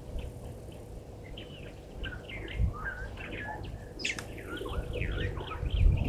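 Several small birds chirping and calling in quick short notes, growing busier from about a second and a half in, over a low rumble that swells near the end.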